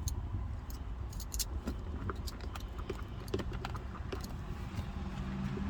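Light, irregular clicks and scratches of an X-Acto knife and fingers working vinyl wrap around a plastic shift dial, over a steady low hum.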